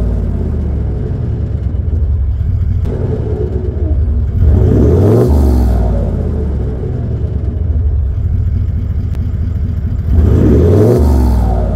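Toyota LandCruiser 70 series V8 turbo-diesel heard at the outlet of its 3.5-inch Torqit exhaust, running, then twice the revs climb quickly and hold high, about four seconds in and again near the end. The revs flare because the clutch is on the way out and letting go.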